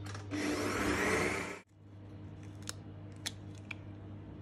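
Electric stand mixer running with its wire whisk beating butter, sugar and citrus zest, then cut off abruptly about a second and a half in. A few faint clicks follow.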